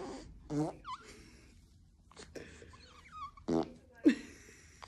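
A baby farting: several short separate bursts, the loudest about four seconds in.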